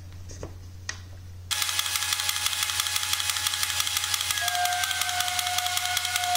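Echo 'Classic Rail' toy Christmas locomotive, switched on with its shell off: its electric motor and gears start suddenly about a second and a half in with a fast, even rattle. About three seconds later its whistle joins with a steady tone.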